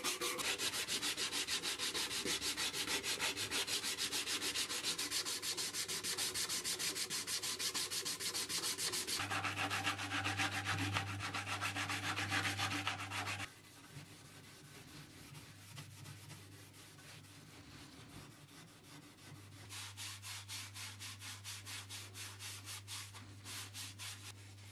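Hand-sanding a wooden axe handle: abrasive paper rasping in quick back-and-forth strokes. About halfway through it drops suddenly to a much softer rubbing, and near the end slower, lighter strokes of an abrasive pad on the wood return.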